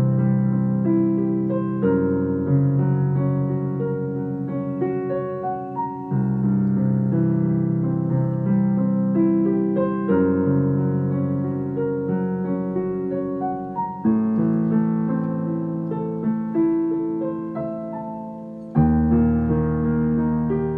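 Piano music: a slow piece with low chords struck about every four seconds under a melody.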